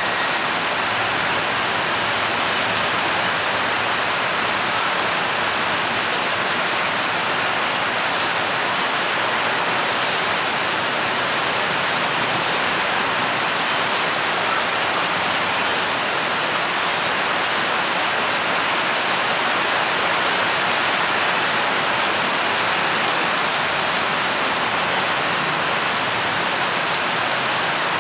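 Heavy rain pouring onto floodwater covering a road: a steady, dense hiss of drops splashing on the water's surface.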